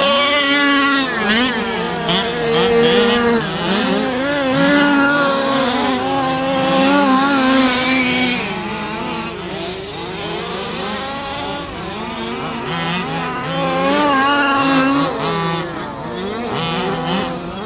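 Small two-stroke petrol engines of several large-scale (1/5) RC cars revving up and down as they race. The pitches overlap and keep climbing and dropping with throttle changes through the corners.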